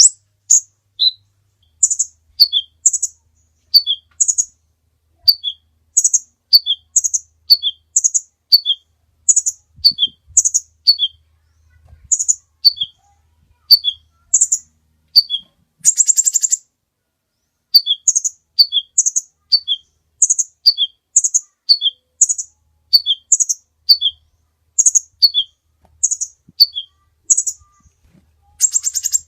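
A kolibri ninja sunbird singing: short, sharp, high-pitched notes repeated about twice a second, mostly paired as a higher note followed by a lower one. It is broken by a brief buzzy rattle about halfway through and another near the end.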